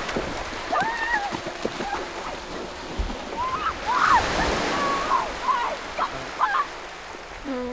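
Several people splashing as they run into cold, knee-deep sea water, the splashing loudest about halfway through, over the wash of small waves. Short shrieks and yelps come in between.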